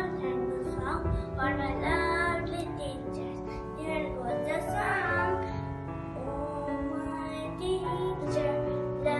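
A song: a voice singing a melody over steady instrumental accompaniment.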